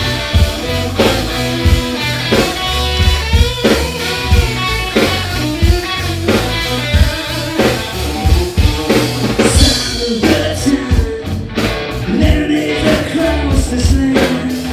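Live rock band playing: electric guitar, electric bass and drum kit, with regular drum hits.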